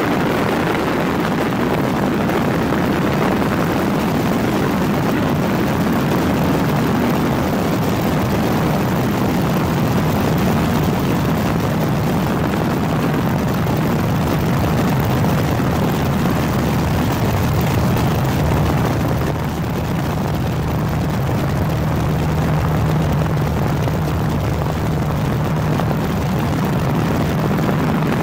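Steady, loud engine drone with a low hum underneath; about two-thirds of the way in the hum settles into a steady held tone.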